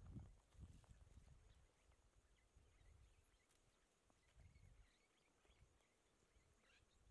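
Near silence: faint outdoor ambience, with a few soft low rumbles in the first second and again about four and a half seconds in.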